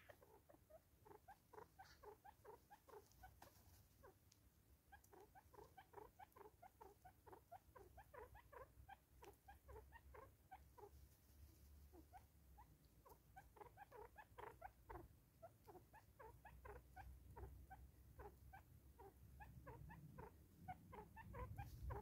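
Faint, quick ticking in runs, about three to five ticks a second, from a Smith's bush squirrel and a ground bird feeding on seed scattered on a tree stump.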